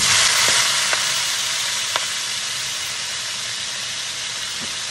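Baby bok choy dropped into a hot wok of rendered steak fat and garlic, sizzling loudly. The hiss starts suddenly, eases off slowly, and carries a few small pops.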